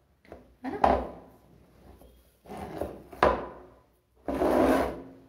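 Handling noise from a small box on a stone tabletop: two knocks with scraping tails as it is set down and moved, then a short rubbing hiss near the end as hands brush over it.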